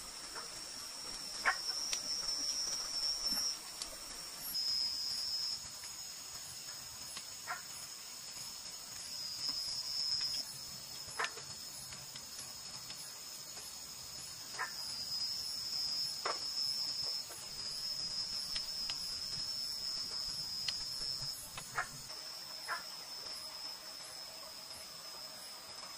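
Night insects, crickets, trilling in a steady high chorus that swells and eases every few seconds. A few short sharp clicks stand out here and there.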